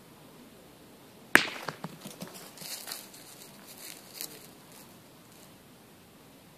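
A thrown steel pétanque boule lands with a single sharp crack about a second in, then boules clatter and scrape over the gravel for a few seconds before settling.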